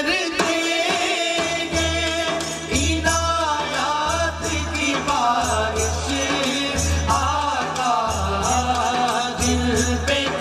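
Qawwali: several men singing a devotional song together, with a large hand-played drum keeping a steady rhythm.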